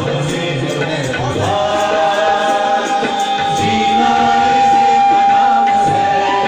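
Live rehearsal of a Hindi film song: a male vocalist sings on a microphone over tabla and instrumental accompaniment. A little over a second in, a note slides up and is then held steady for about five seconds.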